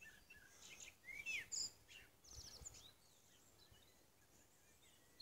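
Faint birdsong: several short chirps and quick high trills from small birds in the first three seconds or so, then quieter.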